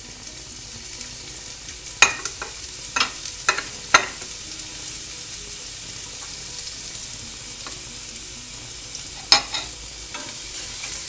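Chopped garlic sizzling steadily in hot frying oil, with a few sharp clicks about two to four seconds in and another just after nine seconds. A wooden spatula stirs it near the end.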